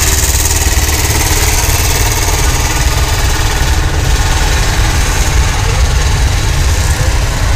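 An engine idling steadily, its running sound heaviest in the deep bass.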